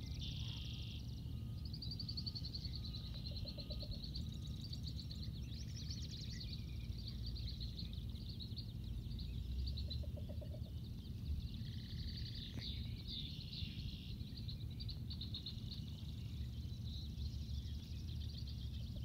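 Two least bitterns counter-calling with short series of soft, low cooing notes, three series spaced several seconds apart. Over them runs a louder, continuous chorus of high chattering and trilling from other marsh birds, above a steady low rumble.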